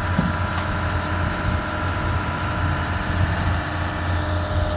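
Heavy machine's engine idling steadily: a constant low hum with faint steady tones above it and no knocks or crashes.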